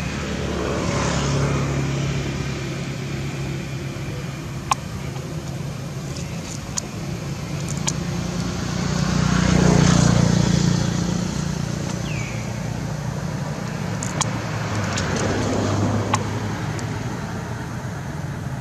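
Road traffic passing: vehicles go by one after another, each swelling and fading with a low engine hum, the loudest about halfway through. A few sharp clicks sound now and then.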